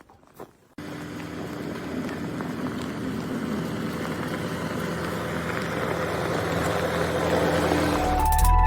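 An engine running steadily, starting abruptly about a second in and slowly growing louder. Music comes in near the end.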